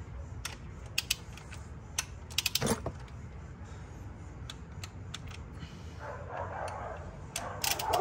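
Click-type torque wrench set to a low 2.8 (kgf·m) torque, tightening bolts: small, quiet clicks and ratchet ticks with light metal taps, including a quick run of clicks about two and a half seconds in and more near the end.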